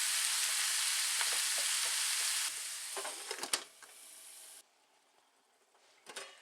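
Frozen bell peppers sizzling in a hot frying pan as they are stirred, with a few sharp utensil clicks against the pan. The sizzle drops about two and a half seconds in and stops abruptly a couple of seconds later.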